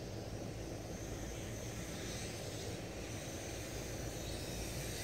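MJX X600 hexacopter's six motors and propellers buzzing steadily in flight.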